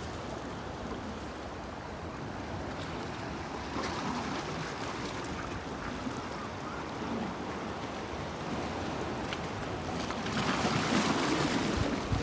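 Small sea waves washing against shoreline rocks, a steady wash that swells louder about ten seconds in.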